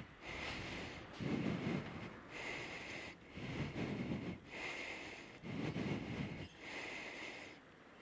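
Riding a city bicycle: a rhythmic swishing noise that pulses about once a second, alternating deeper and hissier bursts.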